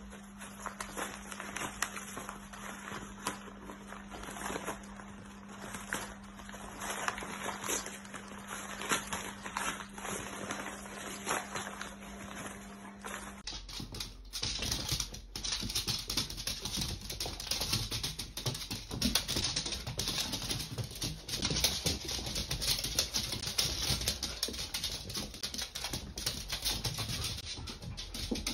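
Dachshund puppies tugging and tearing at a paper bag, a dense run of small crinkles and rips. About halfway through, this gives way to a brighter, busier scatter of clicks and scuffs.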